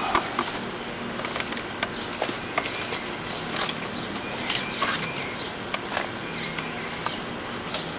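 Quiet outdoor ambience: faint, scattered short clicks and chirps over a steady low hum.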